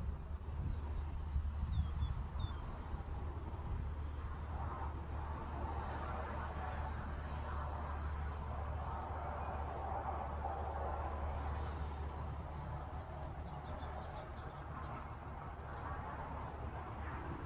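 Birds calling outside: a string of short, very high chirps, one or two a second, with a few fainter calls and a quick trill about thirteen seconds in, over a steady low rumble.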